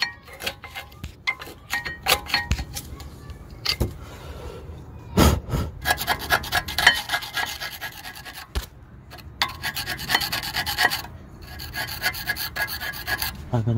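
Flathead screwdriver scraping dirt and rust off the front brake caliper carrier's pad seats, in short, irregular scraping strokes, to clean the surface where the new brake pads will sit.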